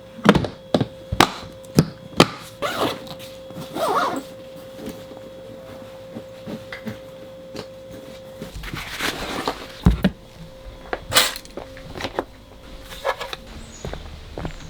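Irregular knocks and thumps, a dozen or so at uneven spacing, with a faint steady tone under the first half that stops partway through.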